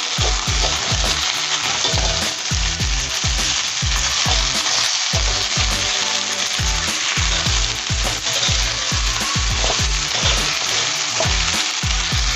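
Beef strips sizzling steadily as they fry in hot oil in a pan, being stirred.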